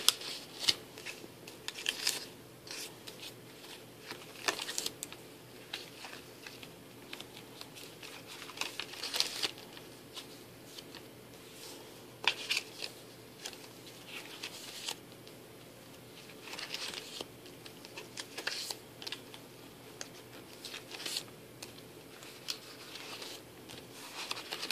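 Pages of a disc-bound paper-and-card scrapbook being turned by hand: irregular rustles and swishes of paper, one every second or few.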